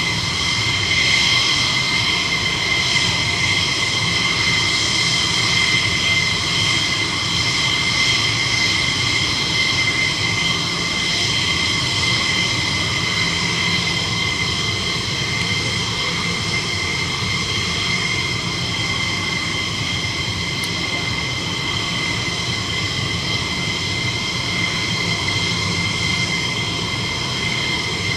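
F-16 fighter jet's single engine running at idle on the ground: a steady high whine made of several even tones over a low rumble.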